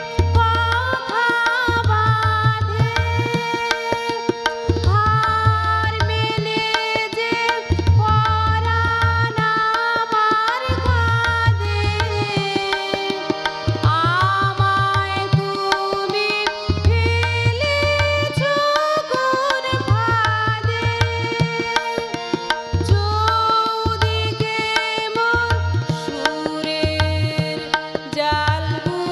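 Tabla and harmonium playing a Bengali song: the harmonium holds steady chords while the tabla keeps a repeating rhythmic cycle, its bass drum giving deep strokes in a regular pattern. A woman's singing voice comes and goes over them.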